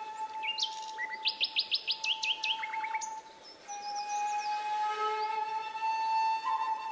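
Birds chirping over background music. A fast run of chirps comes about a second in, over one long held note, and several more held notes layer in toward the end.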